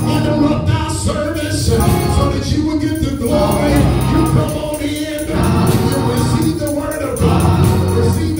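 Gospel music: voices singing over a steady instrumental backing.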